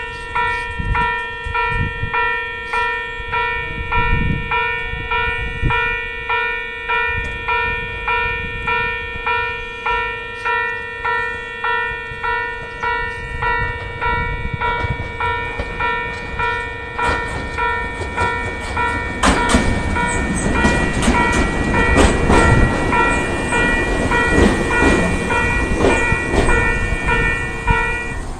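A Japanese railway level-crossing alarm rings steadily, its electronic bell pulsing a little over once a second, and cuts off abruptly right at the end. From about 17 seconds in, a Joshin Electric Railway train runs over the station crossing with its wheels clacking over rail joints, growing loud in the second half.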